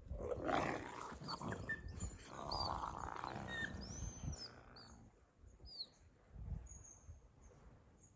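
Wolves growling during a dominance muzzle-grab scuffle, a rough, throaty sound through about the first four seconds that then dies away.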